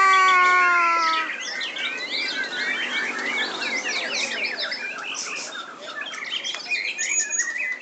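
Many caged songbirds singing at once, a dense overlapping mix of quick chirps, trills and whistled glides. It opens with a long held call, falling slightly in pitch and lasting just over a second.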